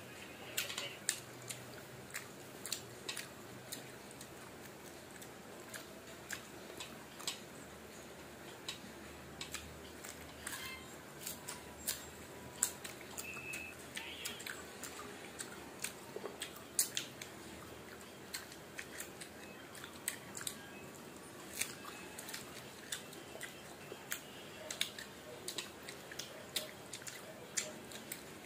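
Close-up chewing of soft mango pieces: wet mouth clicks and small smacks, scattered irregularly throughout.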